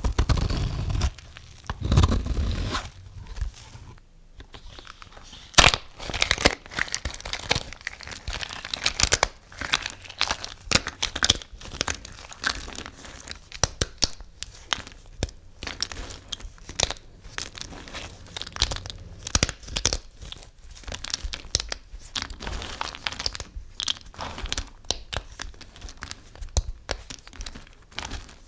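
A blade cutting and scraping dry bar soap: a few heavier strokes near the start, then from about six seconds in a dense run of crisp crackles and crunches as the soap breaks and crumbles.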